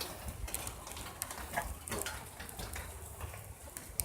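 Rain falling, with scattered raindrops ticking irregularly as they hit the iPad that is recording, over a low rumble.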